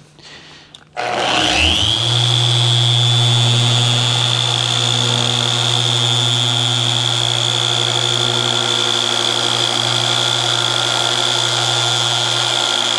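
Small corded paint polisher starting about a second in, spinning up over a second to a steady high whine with a low hum, buffing compound into the truck's clear coat along a body line.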